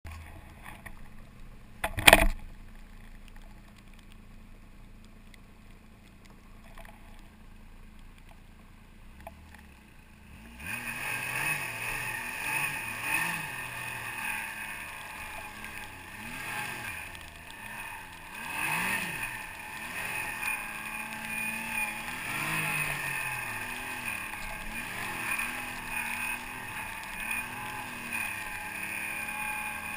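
A sharp knock about two seconds in, then a low hum until about ten seconds in, when a snowmobile engine comes in suddenly. The engine then runs on loudly under load, its pitch rising and falling with the throttle as the sled ploughs through deep powder snow.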